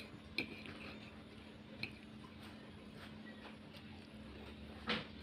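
Quiet eating sounds: a few faint clicks and taps as pancake is handled and eaten with a fork, over a steady low hum. The loudest click comes near the end.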